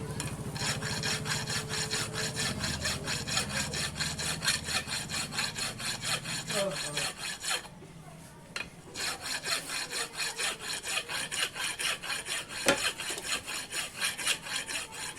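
A hand tool rasping on metal in quick, even back-and-forth strokes, like filing or hacksawing steel. It pauses for about a second midway, then resumes. A low hum runs under the first half.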